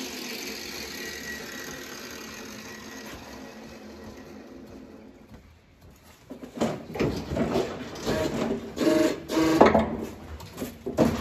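A hand-held power tool winding down, its pitch falling away, then loud irregular metallic clanking and rattling from a hydraulic hoof-trimming chute as the cow's hind leg is released from the leg rest.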